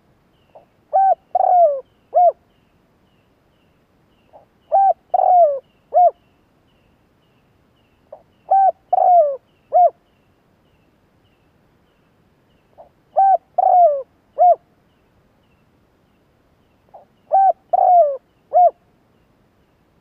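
Spotted dove cooing its song five times, about every four seconds: each phrase a soft short lead-in note, then three loud coos, the middle one longer and falling in pitch.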